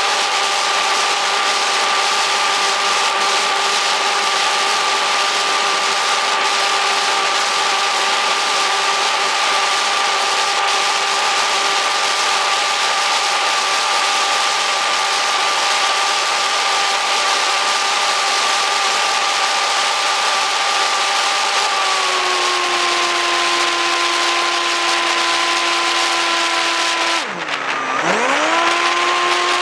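Onboard sound of a 480 mm RC flying wing's electric motor and propeller: a steady high whine with even overtones over rushing wind. Around two-thirds of the way through the whine steps down in pitch as the motor slows. Near the end it dives sharply in pitch and swoops back up within about a second.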